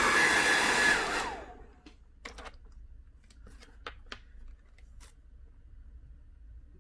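Hair dryer blowing, warming the phone to soften the adhesive. It is switched off about a second and a half in, and its motor whine falls away. A few small clicks and taps follow.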